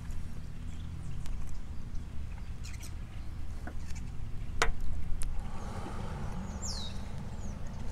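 A few sharp, light clicks and taps of a fork against paper plates during eating, with a brief falling bird whistle near the end, over a low steady background rumble.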